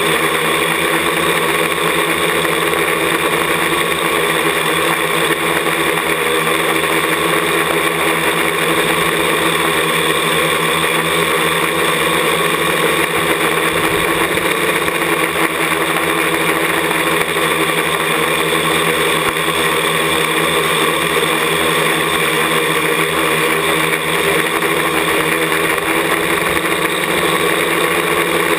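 Parallax ELEV-8 quadcopter's electric motors and propellers running steadily, heard from a camera mounted on the craft itself as it climbs, a loud whir with several steady whining tones.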